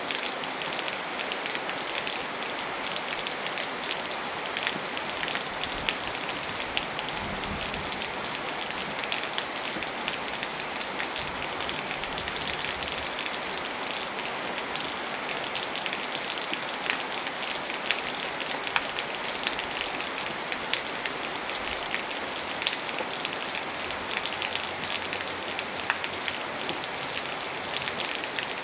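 Steady rainfall, a dense even hiss of raindrops with many small individual drop ticks on hard surfaces.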